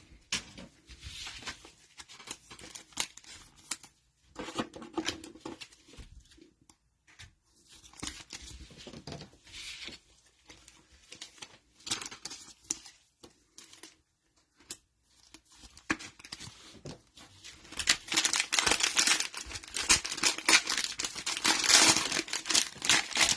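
Cellophane wrappers of trading-card cello packs being torn open and crinkled, in scattered crackly bursts with clicks of handling; the crinkling gets louder and more continuous near the end.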